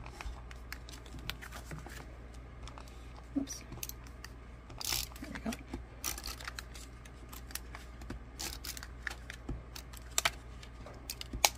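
A tape runner drawn along a paper triangle, with cardstock handled and pressed on a craft mat: scattered light clicks and taps with a few short rasps.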